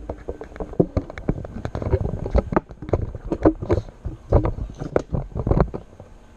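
Irregular clicks, taps and knocks of computer hardware being handled and fitted, several a second and some with a hollow knock.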